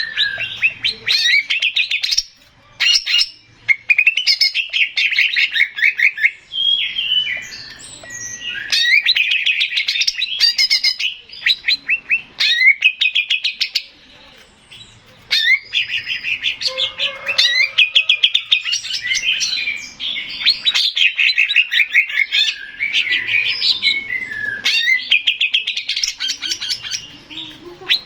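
Male greater green leafbird (cucak ijo) singing in rapid, loud trilled phrases of a few seconds each, broken by brief pauses.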